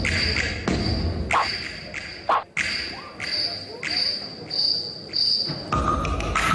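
Electronic soundtrack for a stage dance: a high chirping pulse repeats about every two-thirds of a second over low thuds, with a short falling swoosh a little past two seconds in.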